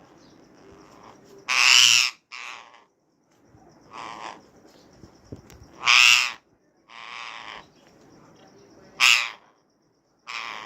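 Rose-ringed parakeets (Indian ringneck parrots) giving harsh, loud calls: three strong half-second calls about three to four seconds apart, with quieter calls in between, uploaded as a ringneck mating call.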